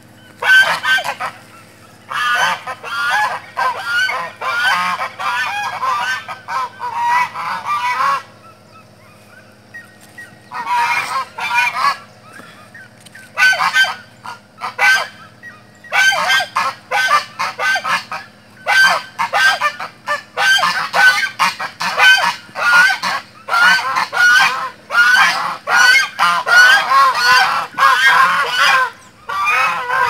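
A flock of domestic geese honking in agitated, aggressive bursts of quick repeated calls. There is a lull about a third of the way in, then near-continuous honking through the second half.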